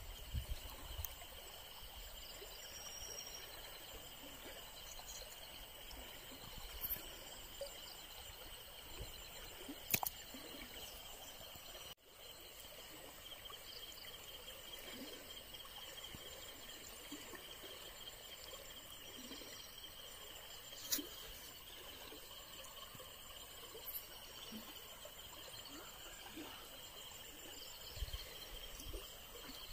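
Steady high-pitched insect chorus, with four sharp clicks scattered through it and some low handling bumps near the end.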